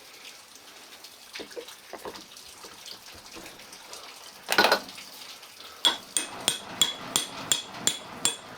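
Faint scraping and handling, then one loud metallic clank about four and a half seconds in, followed by a steady run of ringing metal taps, about three a second: the axe head being tapped down onto its wooden handle while fitting it.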